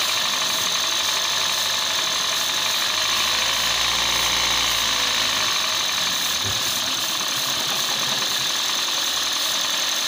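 Toyota Aqua (Prius c) 1NZ-FXE four-cylinder engine idling roughly with a rattle, with a steady hiss of aerosol cleaner being sprayed around the intake hoses. The engine is running lean (code P0171) from an unmetered air leak, and the spray tests for the leak: the idle drops off as the spray is drawn in.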